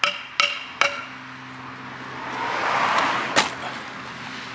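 Three quick sharp knocks with a brief ringing tone, about 0.4 s apart, as a wooden post is seated on rebar pins in a stone wall, then a rush of noise that swells and fades over about a second and a half, with one more sharp knock near its end.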